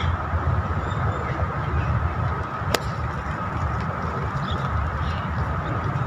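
A golf club striking the ball off the tee: a single sharp crack about three seconds in, over a steady low rumble and a faint steady high hum.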